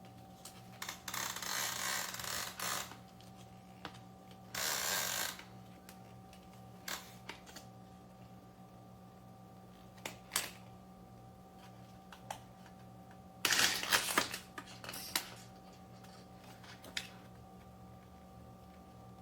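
Handling noises: three short bursts of rustling and a scattering of sharp clicks, over a steady low hum.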